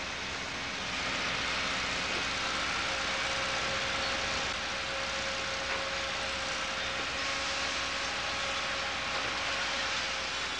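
Steady drone of distant engine noise with a faint steady hum, getting a little louder about a second in.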